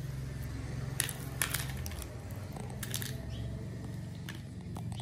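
Small stones clicking against each other and against a plastic toy dump truck as a hand loads them into its bed: a few sharp clicks, the loudest about one second and a second and a half in and a pair around three seconds. A steady low hum runs underneath.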